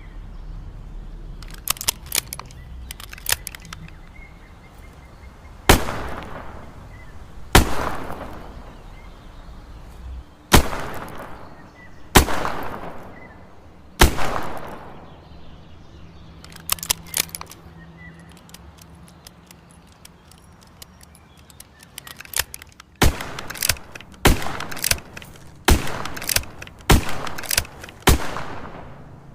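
Smith & Wesson 360J revolver firing two strings of five shots, about one and a half to two seconds apart in the first string and a little over a second in the second. Each shot has a ringing tail. Short clusters of metallic clicks come before the first string and in the long pause between the two strings.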